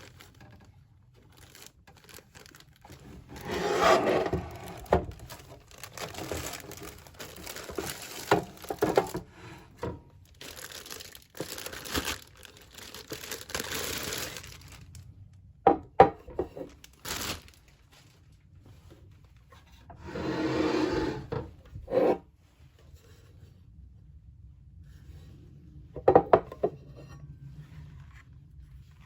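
Packaging being handled during an unboxing: bouts of rustling, rubbing and tearing, broken by a few sharp clicks and knocks.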